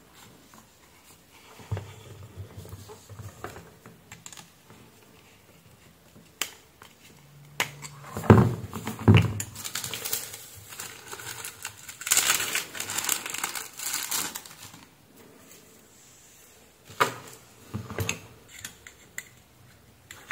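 Small handling sounds on a workbench: clicks and knocks of the plastic desoldering gun and its metal nozzle being handled and set down, with a thin plastic parts bag crinkling for a few seconds in the middle.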